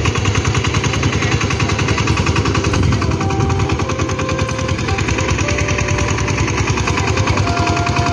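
Single-cylinder diesel engine of a walk-behind power tiller running steadily, with a fast, even chugging beat.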